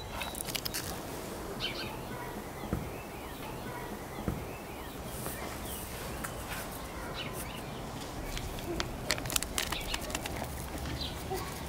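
A hand stirs ground nuts in an enamel pot with a dry, grainy rustle, then a small paper sachet is torn open with a quick run of sharp crinkles near the end. Birds chirp faintly in the background.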